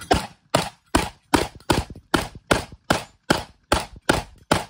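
Rock Island VR80 semi-automatic 12-gauge shotgun fired in a fast, even string of about a dozen shots, roughly two and a half shots a second.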